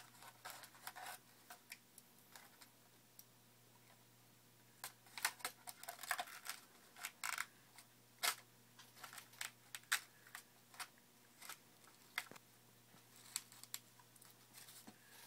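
Scattered light clicks, taps and scratches of hands handling a model airplane, pressing a keychain camera onto its Velcro mount inside the fuselage, over a steady low hum.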